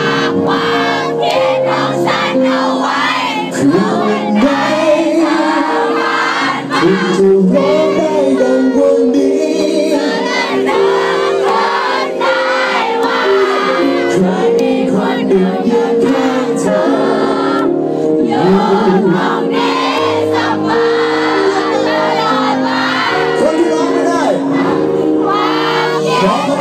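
Live band performance with a male singer, long chords held under the vocal line, and the audience singing along, heard from within the crowd.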